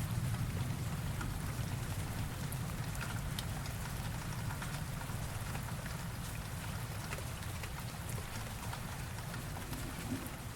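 Steady rain with scattered drops pattering, under the low rumble of a thunderclap that dies away over the first few seconds.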